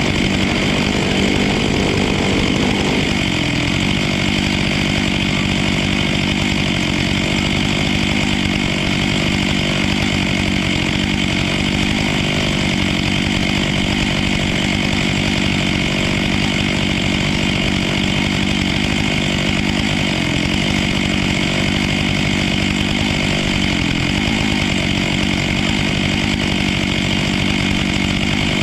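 Stihl MS 500i fuel-injected two-stroke chainsaw cutting through a tree trunk at steady high revs, its pitch dipping briefly a few times as the chain loads in the wood.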